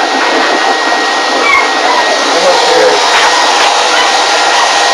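A vacuum-type blower motor runs steadily with a continuous rush of air, used on a wet Newfoundland puppy after its bath.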